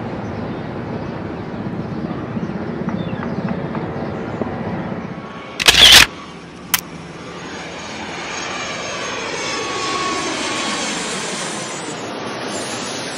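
Mil Mi-17 transport helicopter running on the ground. About five and a half seconds in, a very loud sound-effect hit and a short click follow, then a long swelling whoosh with sweeping tones that builds and eases off for an animated logo.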